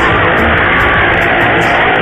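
Loud music with guitar.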